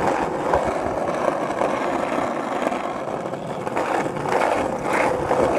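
Skateboard wheels rolling over rough asphalt, a steady rolling noise with a few small bumps along the way.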